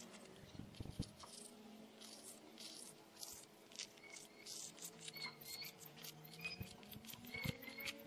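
White chalk scratching across a bare board in many short, quick sketching strokes. A few short high chirps are heard faintly in the second half.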